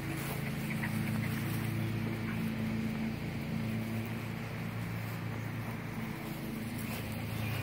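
Steady low hum of a motor running, several low tones held level throughout.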